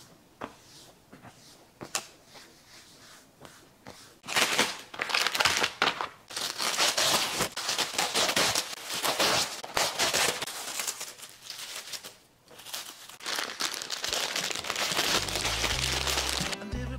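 Glad Press'n Seal plastic wrap being pulled from its box and crinkled loudly as the sheets are handled, after a few quiet seconds of a cloth wiping a stone countertop. Near the end the crinkling goes on, now from a clear plastic bread bag, as music with a bass line comes in.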